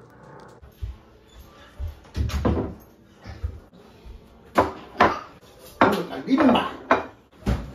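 Plates and serving dishes set down on a wooden dining table: a series of knocks and clatters, the loudest coming in quick succession from about halfway through.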